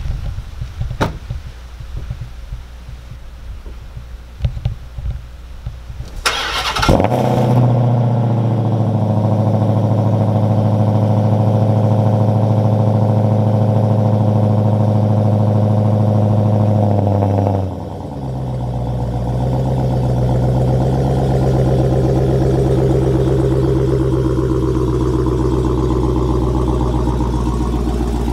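Cold start of a Dodge Challenger SRT Hellcat Redeye's supercharged 6.2-litre Hemi V8, heard at the rear exhausts. After a few faint clicks it is started about six seconds in, catches with a burst, and runs at a loud, steady elevated idle. About eleven seconds later the idle drops and settles into a slightly lower, steady idle.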